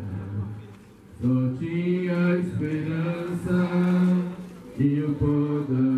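Voices chanting a slow devotional hymn in long, held notes, with a short pause between phrases about a second in and another brief break near the end.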